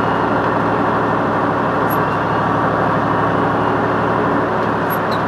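Tractor-trailer's diesel engine and road noise heard inside the cab, a steady drone while cruising along the highway.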